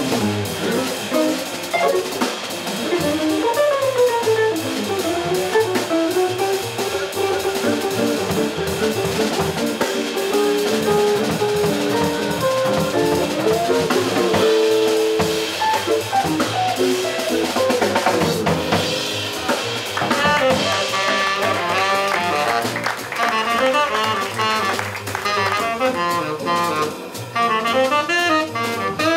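Live jazz quartet: an archtop electric guitar plays a single-note solo over double bass and drum kit, and a tenor saxophone comes in with the lead line about two-thirds of the way through.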